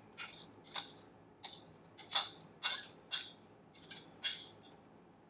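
Short scraping and plastic crinkling strokes, roughly two a second, as chopped habanero and garlic is knocked and scraped from a plastic mini chopper bowl into a plastic zipper bag.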